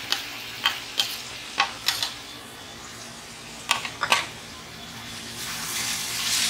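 Chicken and vegetables sizzling in a steel wok, with a series of sharp knocks in the first few seconds as chopped red bell pepper is scraped off a plate into the wok. Near the end the sizzle grows louder as the mix is stirred with a wooden spatula.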